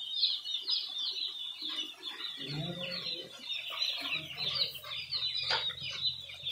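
A large flock of day-old Cobb broiler chicks peeping all together: many short, high, falling cheeps overlapping into a continuous chorus.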